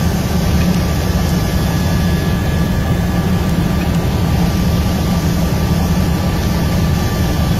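Helicopter rotor and turbine engine running steadily, heard from inside the cabin: a loud, constant low drone with a faint steady whine above it.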